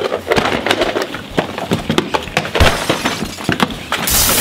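Hollow plastic ball-pit balls clattering and knocking together as children dig through them: quick, irregular clicks, with a short rustling hiss near the end.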